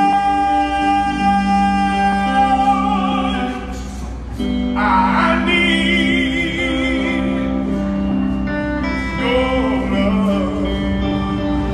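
A man singing long held notes with a wide vibrato, pausing briefly about four seconds in, over steady low sustained accompaniment notes.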